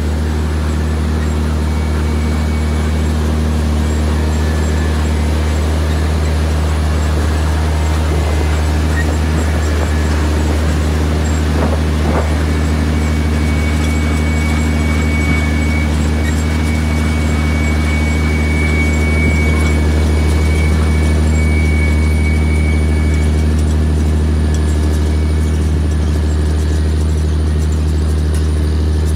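Engine of a self-propelled two-row carrot harvester running steadily, with a deep, even hum and a faint high whine in the middle stretch.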